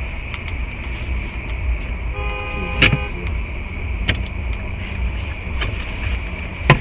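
Steady low road and engine rumble as heard from a car's dashcam, with a car horn sounding for about a second around two seconds in, and a few sharp knocks.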